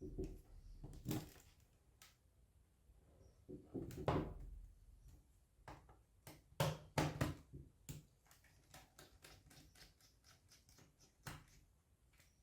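Hands and a small screwdriver working on a laptop's plastic bottom case: irregular sharp clicks and knocks, with a run of quick light ticks about eight seconds in.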